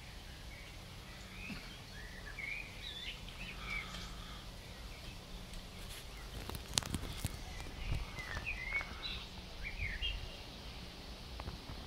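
Small birds singing in short chirping phrases, in two spells, over a steady low rumble of wind on the microphone. A few sharp clicks a little past halfway.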